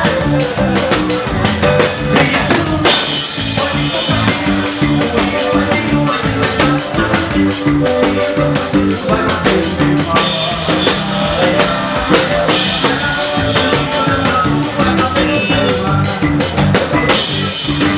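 Instrumental passage of a forró song played by a band. A drum kit keeps a steady beat under bass and melody lines, with crashes about three seconds in, again around ten seconds and near the end.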